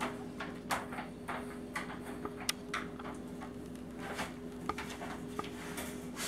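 Newborn husky puppies stirring on a fleece blanket: scattered small clicks and soft rustles over a steady low hum.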